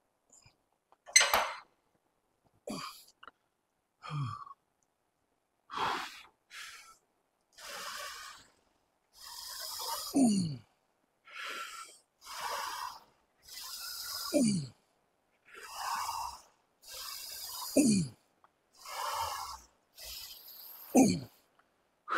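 A man breathing hard through a set of heavy barbell squats: a sharp breath in or out every second or two. In the second half, every three to four seconds an exhale ends in a short grunt that falls in pitch, one for each rep.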